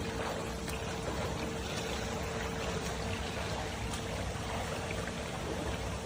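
Water splashing and churning from a swimmer's freestyle strokes, with a steady hum underneath.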